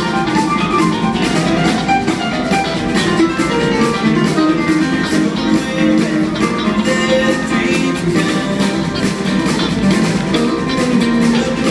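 A live band playing with acoustic guitar strumming and a steady beat, with no break.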